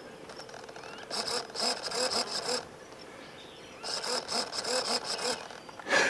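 Small electric motor of a robotic lava lizard model whirring as it bobs up and down in press-ups. It comes in two bursts of about a second and a half each, each with a quick, regular pulse.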